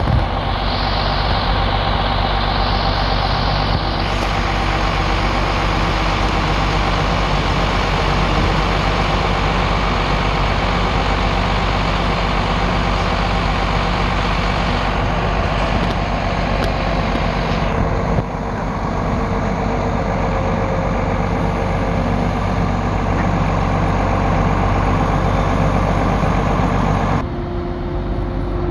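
MAN TGS 26.400 truck's straight-six diesel engine running steadily at a constant speed, driving the Palfinger loader crane's hydraulics. The sound drops abruptly near the end.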